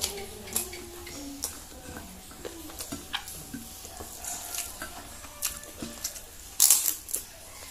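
Close-up eating sounds: wet chewing and mouth clicks along with fingers working through rice on a plate, then, a little before the end, a louder crunchy bite into a fried snack.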